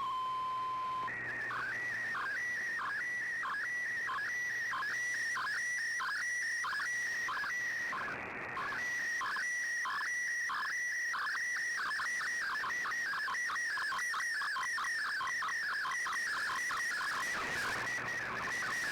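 Slow-scan television (SSTV) image signal received over shortwave radio. A short steady tone is followed by a warbling, beeping tone pattern that repeats about twice a second, one beat per scan line, with a brief fade partway through.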